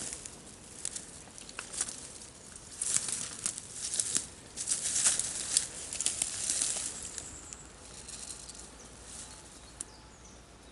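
Rustling and crackling close to the microphone, like brush, dry leaves or clothing being pushed through, coming in irregular clusters and dying down over the last few seconds.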